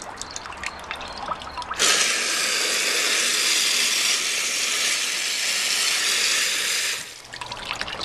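Custom-built toilet flushing a sheet of tissue. A steady rush of water into the bowl starts abruptly about two seconds in and cuts off sharply some five seconds later.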